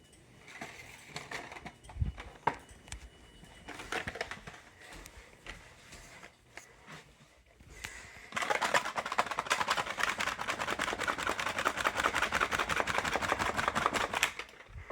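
A steady hiss of air blown into a smoke detector to clear out the test smoke. It starts about eight seconds in and lasts about six seconds, with a fast flutter, after scattered light clicks of handling the device.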